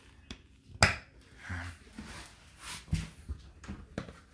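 Whirlpool dishwasher door being closed: a sharp click about a second in, then a dull knock and a few lighter clicks.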